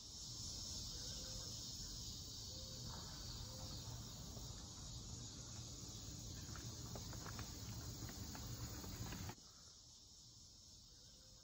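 Summer evening ambience of crickets and other insects chirring steadily in a high, even band, over a low rumble. About nine seconds in, it drops to a quieter, softer level, as heard from indoors behind a window.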